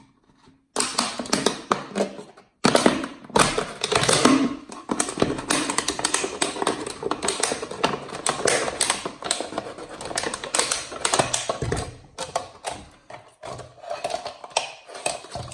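Thin PET plastic bottle crackling as it is cut apart with scissors and handled, a rapid irregular run of sharp clicks and crinkles that thins out near the end.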